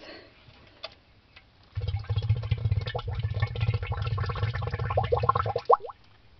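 Plastic bottle being filled under water, gurgling and bubbling as air glugs out of its neck, starting about two seconds in and stopping shortly before the end, with quick rising glug sounds near the end.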